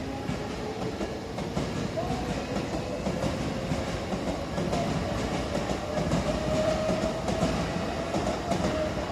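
Tobu 70000 series electric train passing over a level crossing: steady wheel-and-rail running noise with some clacking over the rail joints, and a whine that rises slowly in pitch.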